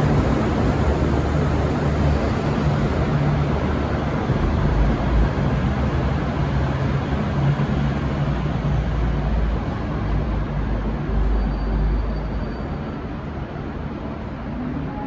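V/Line VLocity diesel multiple unit running as it departs, a steady low rumble and noise that slowly fades and loses its treble as the train draws away.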